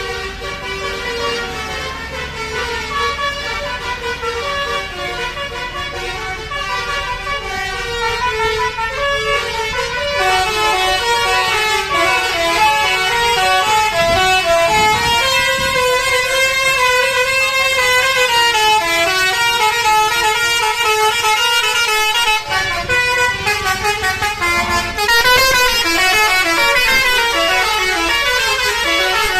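Basuri telolet musical bus horn playing a tune: several horn tones sounding together and stepping from note to note, one gliding up and back down midway, getting louder about ten seconds in.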